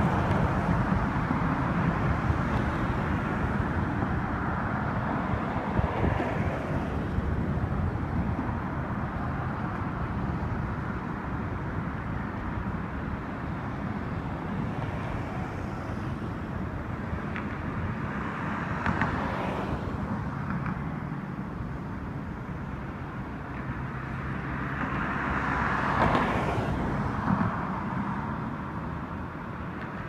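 Steady hum of road traffic, with louder swells as vehicles pass about two-thirds of the way through and again a few seconds later.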